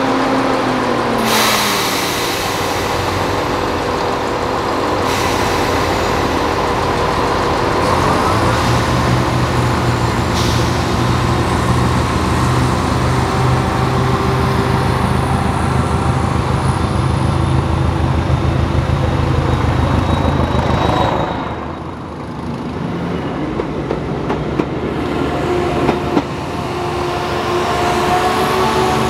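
Diesel multiple-unit train engine running steadily. About eight seconds in, its note steps up and grows louder; just after twenty seconds it falls away, then settles into a steady run again.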